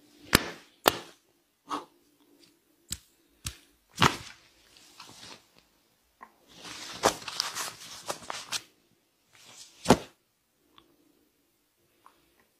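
Hands slapping and striking a man's head and neck in a rough head massage: irregular sharp slaps through the first few seconds, a rough rubbing of hands through hair for about two seconds midway, and one loud slap near the end.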